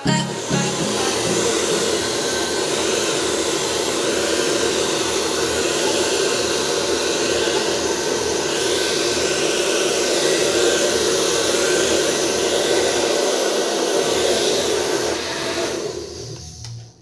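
Handheld hair dryer blowing steadily while hair is styled, dying away near the end.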